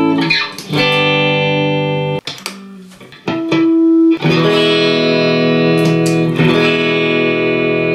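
Clean electric guitar strumming chords that ring out. The chord stops about two seconds in, a single note rings briefly a second later, and then strummed chords ring again.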